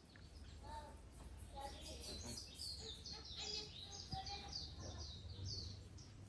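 A bird singing: a quick series of short, high chirping notes, several a second, through most of the stretch.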